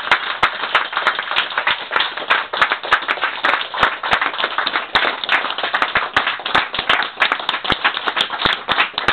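Small audience clapping: dense, steady applause of many sharp hand claps.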